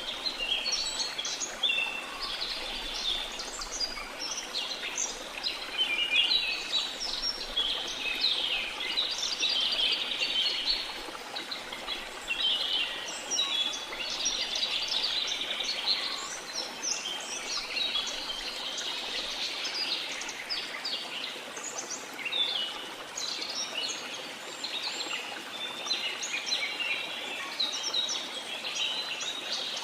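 Rainforest bird chorus: many birds chirping and calling at once, dense overlapping high chirps over a steady background hiss.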